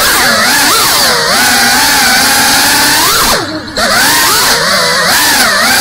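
GEPRC Cinelog 35 cinewhoop's brushless motors and ducted propellers whining, the pitch rising and falling with the throttle. About three and a half seconds in the whine drops off with a falling pitch, then spools straight back up.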